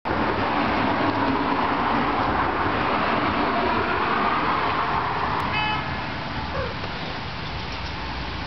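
Road traffic going by: a loud, steady rush of a passing vehicle that eases off about six seconds in, with a short horn-like toot just before it fades.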